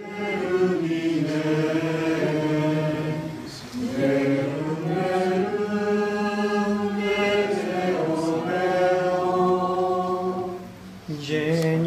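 Congregation singing Latin plainchant together in long held phrases, taking a breath about three and a half seconds in and again near the end.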